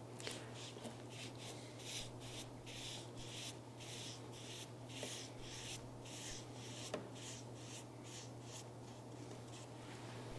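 Dyed shellac being wiped onto a wooden panel by a gloved hand: faint, quick rubbing strokes, about three a second, growing fainter after about seven seconds, over a steady low hum.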